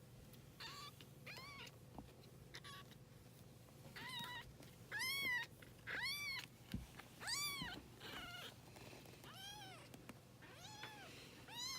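A young kitten meowing over and over: high, thin, rise-and-fall calls about once a second, growing louder from about four seconds in.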